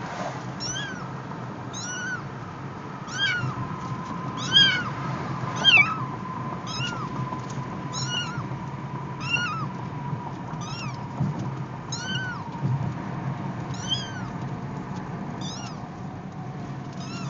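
Young calico kitten meowing repeatedly in a cardboard box: about a dozen short, high, arched meows, roughly one every second or so, loudest a few seconds in.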